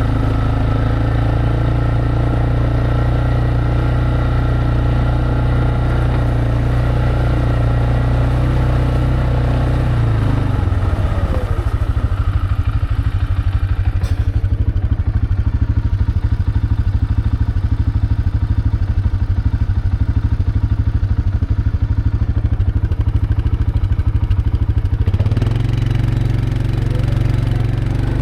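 A vehicle engine running under way. About ten seconds in it drops to a slower, evenly pulsing run, and it picks up again to a steadier, higher drone near the end.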